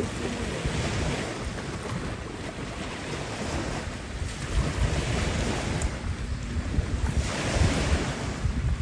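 Small waves washing in against a rocky shore, swelling and fading every few seconds, with wind buffeting the microphone as a low rumble.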